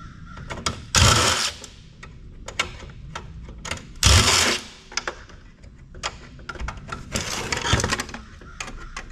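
Cordless power driver run in short bursts to back a screw out of a sheet-metal chassis: one run about a second in, another about four seconds in, and a cluster of shorter runs near the end. Small metallic clicks and clatters of the chassis being handled come in between.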